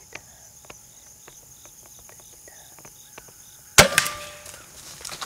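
Crossbow shot: one sudden loud crack of the release nearly four seconds in, with a second, smaller crack a moment later and a short fading tail. Before it, only faint chirping insects.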